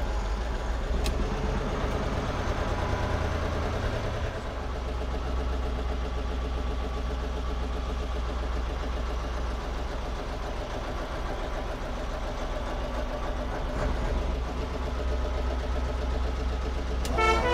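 Dennis RS130 fire engine's engine running as the truck drives slowly along, a steady low rumble whose note shifts about four seconds in.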